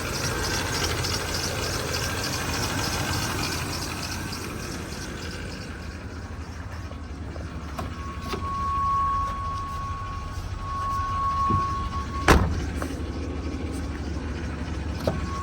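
1989 GMC Sierra engine idling. About halfway through, the dash warning chime starts a steady high beeping that keeps going with a short break. There is one sharp click near the end.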